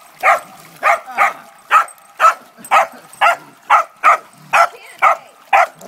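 A dog barking in a steady series, about two barks a second.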